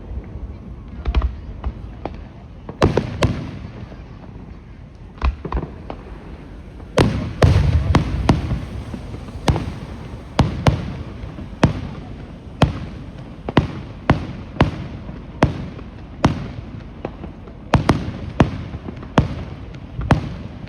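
Fireworks bursting overhead: a series of sharp bangs, each with a low rumbling tail. A few come irregularly at first, with a dense cluster about seven seconds in, then they settle into a roughly once-a-second run of reports.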